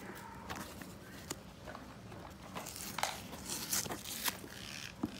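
A fingernail picking and scratching at packing tape on a cardboard box, with a handful of short scrapes and small crackles as the tape edge lifts.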